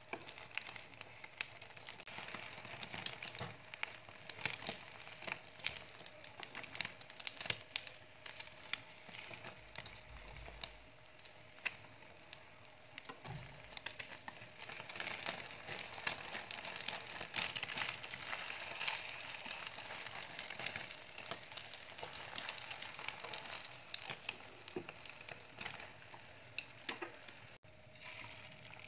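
Beaten egg frying in hot oil in a pan for a rolled omelette, with a steady sizzle full of small crackles. The sizzle drops quieter near the end.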